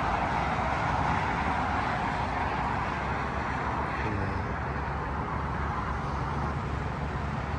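A car driving: steady road and tyre noise with a low rumble underneath.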